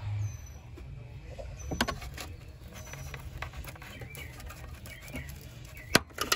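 Plastic trunk trim panel being pulled loose by hand, its push clips giving scattered clicks and rattles, with a sharp snap about six seconds in as a trim clip pops out.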